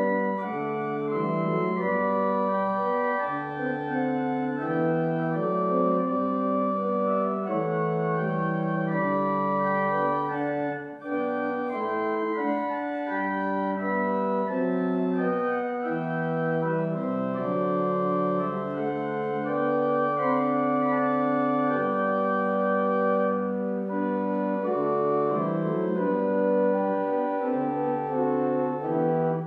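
Organ playing a slow hymn tune in held chords, with a short break between phrases about eleven seconds in.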